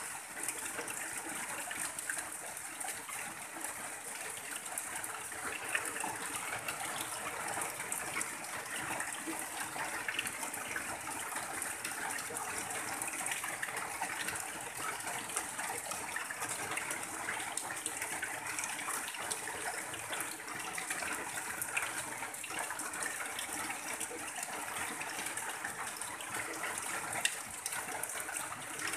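Steady rain on a tin roof, with runoff pouring off the roof edge in a continuous stream.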